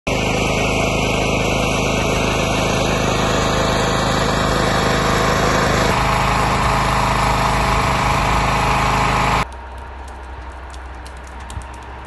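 A small engine running steadily and loudly. About nine and a half seconds in it cuts off abruptly to a much quieter background with a few faint knocks.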